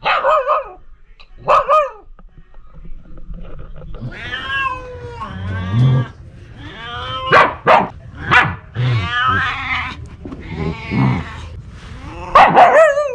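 A pomsky puppy and a cat calling back and forth at play. Two short wavering yips come near the start. From about four seconds in there is a run of longer, drawn-out wavering yowls and howls with a deep growly undertone, and a loud call comes near the end.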